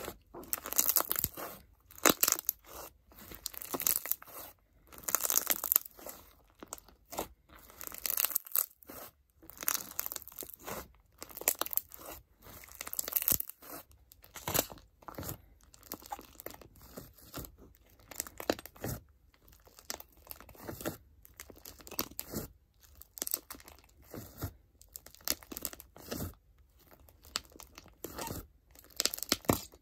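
Clear crunch slime with embedded crunch pieces being squeezed and kneaded by hand, giving a string of crunching, crackling squishes, roughly one or two a second.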